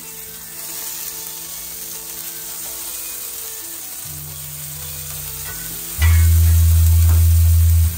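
Rump steak and tomatoes sizzling on a De'Longhi electric grill, a steady frying hiss. From about four seconds a low hum sets in; about six seconds in it turns into a loud, steady low drone that cuts off suddenly near the end.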